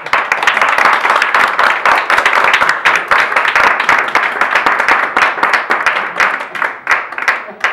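A small audience applauding with many hands clapping. It starts suddenly and dies away near the end.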